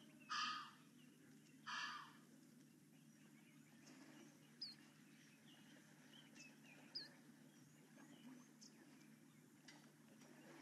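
Quiet open-air ambience with a low steady hum. Two short harsh rasping sounds come in the first two seconds, then a couple of brief, high, falling bird chirps.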